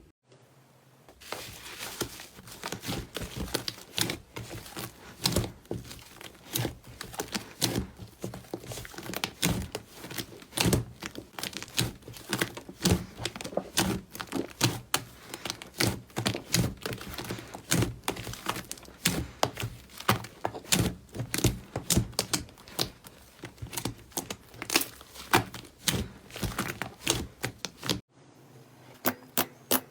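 Slime being squeezed and pressed by hand, making a dense run of sticky crackles and pops, several a second. The sound starts abruptly about a second in and cuts off suddenly near the end.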